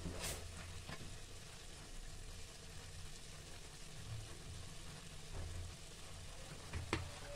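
Faint, steady sizzling of cabbage and soya chunks frying in a kadhai, with a few light knocks.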